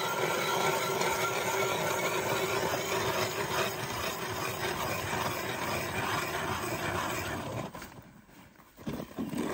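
Powered ice auger drilling a fishing hole through river ice, running steadily and cutting off about eight seconds in.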